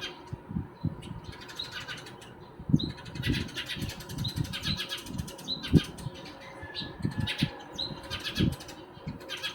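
Small birds chirping in quick repeated bursts, mixed with soft low thumps, the loudest about three and six seconds in.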